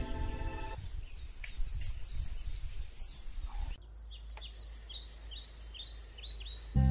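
Birds chirping over a low steady hum. In the second half, one bird gives a run of short falling chirps, several a second. Background music fades out about a second in and comes back at the very end.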